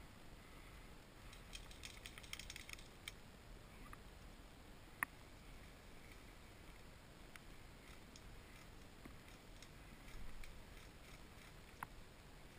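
Near silence: faint crackling of dry grass and reeds a little after the start, then a few isolated small clicks, the sharpest about 5 seconds in.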